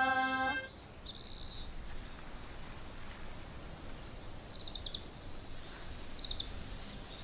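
A children's song ends on a held note about half a second in. After it, a small bird gives short, rapid trilled chirps three times over a faint outdoor background.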